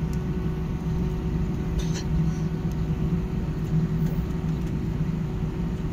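Jet airliner's engines heard from inside the cabin while it taxis: a steady low rumble with a constant hum.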